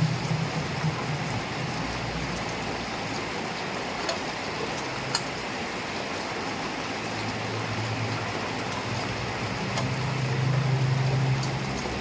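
Heavy rain falling steadily, with scattered sharp drop ticks. A low hum like an engine is there at the start, fades, then grows louder over the second half.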